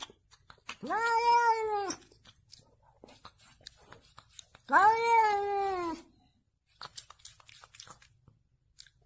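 A cat meowing twice, two long drawn-out meows about three seconds apart, each rising and then sliding down in pitch, with faint clicks between them.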